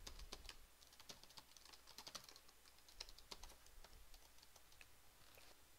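Faint computer keyboard typing: irregular key clicks as a line of code is typed, thinning out near the end.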